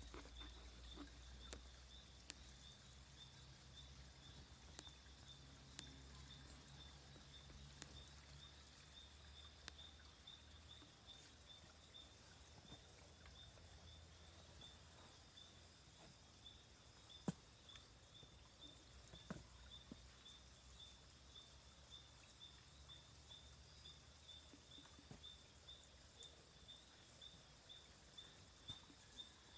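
Faint forest ambience: a high, evenly pulsing animal call keeps repeating, with scattered small snaps and rustles from movement through undergrowth and a low rumble in the first half.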